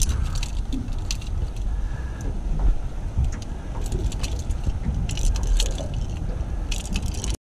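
Wind buffeting the camera microphone as a steady low rumble. Scattered clusters of sharp clicks and light rattles come over it. The sound cuts off abruptly near the end.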